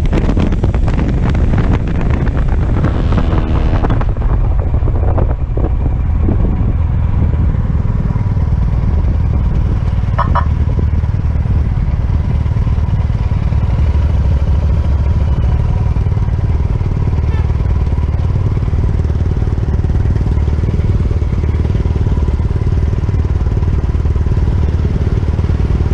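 Motorcycle engine running steadily while riding, with heavy wind rush on the microphone.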